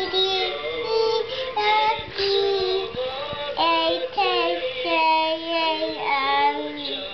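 A toddler singing wordless held notes into the corded microphone of a toy sing-along cassette player, his voice played out through the toy's speaker.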